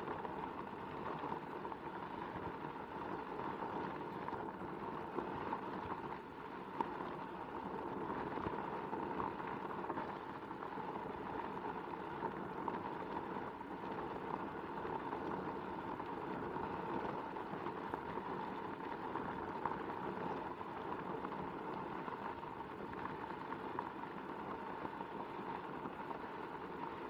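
Onewheel XR rolling over a gravel dirt trail: the tyre crunching steadily on grit and pebbles over a steady hum from the hub motor, with an occasional sharp tick from a stone.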